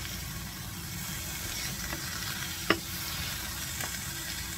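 Sausages sizzling in a frying pan as a wooden spatula turns them, with a few light scrapes and one sharp knock of the spatula on the pan a little past halfway.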